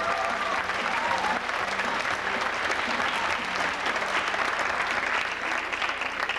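Theatre audience applauding, with a few voices calling out near the start; the clapping starts to thin near the end.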